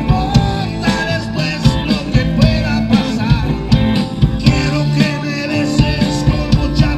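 Live rock band playing amplified, with drums keeping a steady beat under bass and electric guitar.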